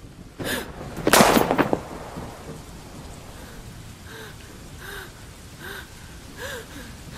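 Steady rain with a loud crash about a second in. From about four seconds in, short soft sounds repeat evenly, roughly one every three-quarters of a second.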